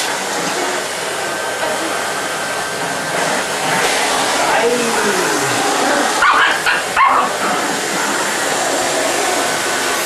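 Canister vacuum cleaner running steadily, with a small dog barking at the nozzle, the sharpest barks about six to seven seconds in.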